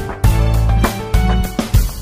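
Music with a steady beat: sharp percussive hits every half second or so over sustained low notes.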